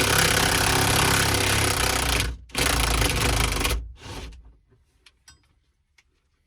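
High-torque impact wrench hammering on a seat belt anchor bolt held with blue Loctite, in a long burst of about two seconds and then, after a short break, a second burst of just over a second as the bolt breaks loose. It stops about four seconds in, leaving only a few faint clicks.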